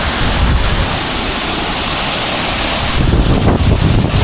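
Waterfall close by: a steady, dense rush of falling water. About three seconds in, wind buffeting on the microphone grows heavier.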